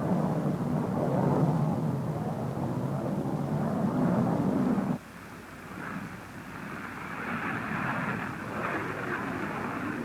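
Jet aircraft engine noise on an old film soundtrack: a rushing roar with a strong low rumble that cuts off abruptly about five seconds in, followed by a thinner, higher rushing hiss that swells and fades.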